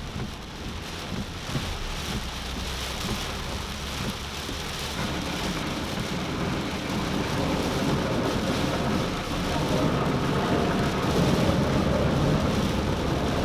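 Heavy rain drumming on a car, heard from inside the cabin while driving, with a deep rumble underneath; it grows louder over the second half.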